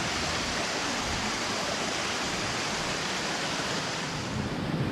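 Waterfall cascading: a steady rush of falling water.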